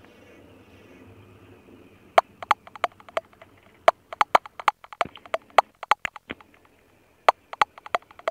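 A sparse, irregular run of sharp clicks over a faint hiss, starting about two seconds in, with a short gap about two-thirds of the way through.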